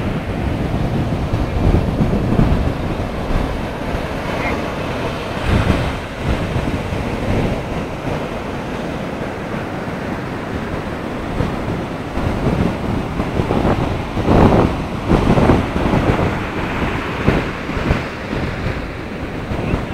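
Sea surf breaking and washing up a sandy beach, with wind rumbling on the microphone. Louder gusts of low rumble come about two-thirds of the way through.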